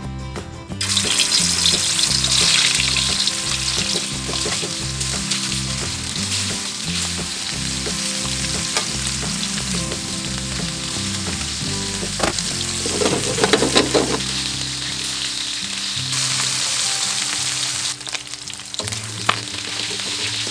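Cubes of pork belly dropped into hot oil in an aluminium wok, starting a loud sizzle about a second in that keeps up as they fry. The pieces are turned with tongs and a wooden spatula, with a burst of clatter against the wok about halfway through.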